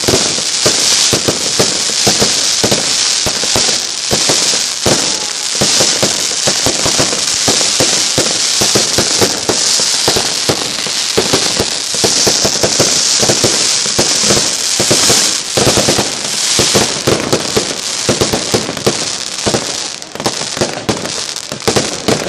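A loud, unbroken barrage of fireworks and firecrackers: many rapid bangs and crackles running together.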